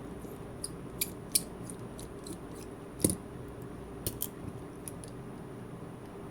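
A handful of sharp clicks and taps from small hand tools working on an Amazfit T-Rex 2 smartwatch during its teardown, the loudest about three seconds in, over a steady low hum.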